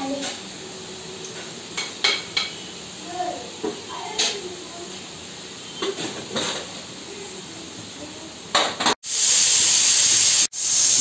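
A spoon stirs in a steel pan with scattered light clinks and scrapes. About nine seconds in, a pressure cooker whistles: a loud, steady hiss of steam venting from its weight valve, the whistle that marks the carrots cooking under pressure.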